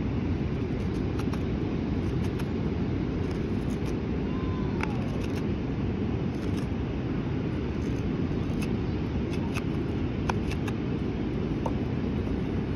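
Steady low rush of a waterfall, with a scattering of faint short clicks from a hook knife scooping across the grain of a butternut spoon bowl.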